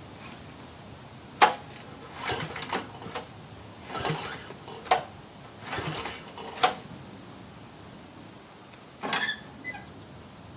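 A series of sharp metallic clanks, knocks and short rattles, scattered irregularly, the loudest about a second and a half in and near the middle, with a brief clatter near the end.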